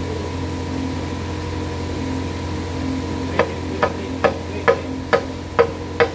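Steady workshop hum. From a little past halfway, a series of sharp, evenly spaced clicks starts, about two a second, as a hand tool works at the cylinder head of a partly dismantled engine.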